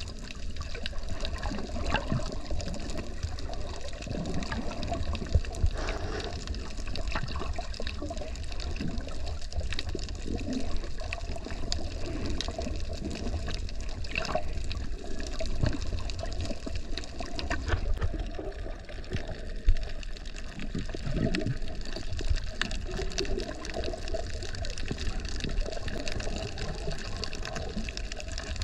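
Water heard through a submerged camera: a muffled, continuous rushing and sloshing as it moves through the water, with many scattered sharp clicks.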